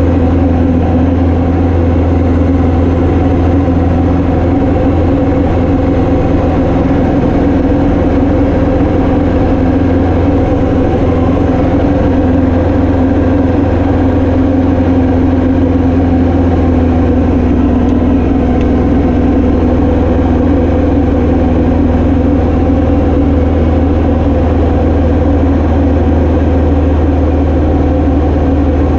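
Piston engine and propeller of a light training aircraft running at a steady power setting, a loud continuous drone.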